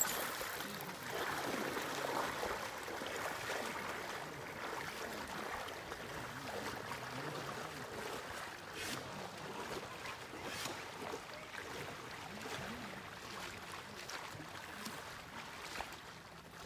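River water running in a steady wash, loudest in the first few seconds and slowly fading.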